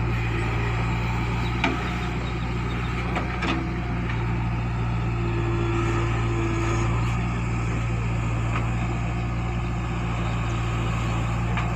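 JCB 3DX backhoe loader's diesel engine running steadily under load as the backhoe digs soil and swings a loaded bucket, with a few brief knocks from the arm and bucket.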